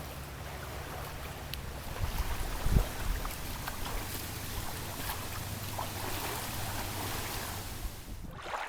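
Wind rumbling on the microphone over the steady wash of water, with a thump about three seconds in.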